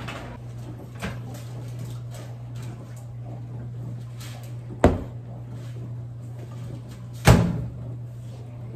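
Over a steady low hum, an over-the-range microwave's door clicks open about a second in. A sharp knock comes near five seconds as the ceramic bowl is handled, and the door bangs shut about seven seconds in, the loudest sound.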